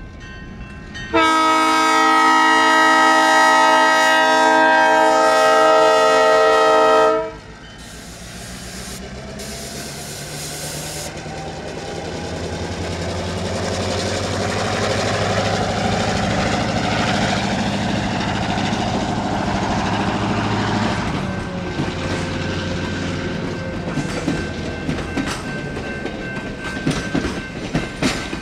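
Bo-Bo diesel locomotive's air horn sounding one long chord-like blast of about six seconds, starting about a second in. The diesel engine then grows louder as the locomotive works past under load, and from about two-thirds of the way in the passenger coaches' wheels clack over the rail joints.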